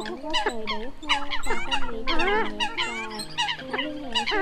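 A flock of Eurasian coots calling all at once: many overlapping short, sharp calls and gliding calls with no break, over a few steady low tones.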